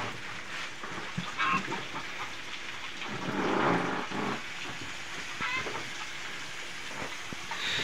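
Water splashing and dripping, with scattered knocks and a louder rush of noise about three to four seconds in.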